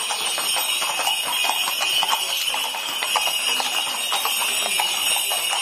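Several horses' hooves clopping on a paved street, many irregular clicks, over a steady jingle of bells.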